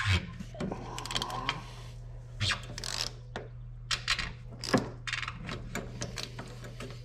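Stubby 3/8-inch ratchet clicking in short, irregular bursts as it works an oil filter claw wrench to loosen an oil filter.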